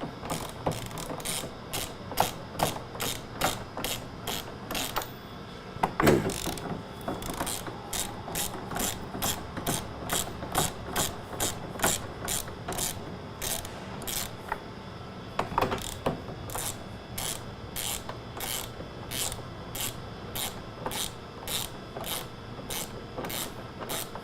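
Hand ratchet wrench clicking steadily, about two to three clicks a second, as the 20 mm bolts of a van's spare tire carrier are loosened. A louder clunk comes about six seconds in and again near sixteen seconds.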